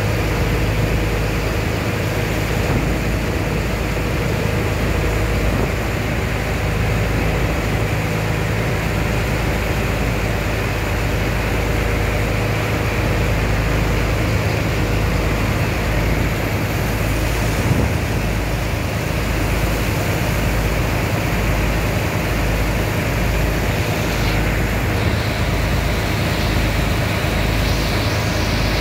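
Steady low drone of a sand dredger's engine and pump, with a jet of sand-and-water slurry gushing from the discharge pipe and splashing into the barge's hold.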